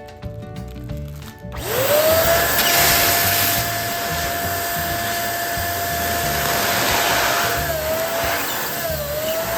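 Background music, then about a second and a half in an electric balloon pump starts up, its whine rising quickly to a steady pitch over a rush of air; near the end the pitch dips briefly twice.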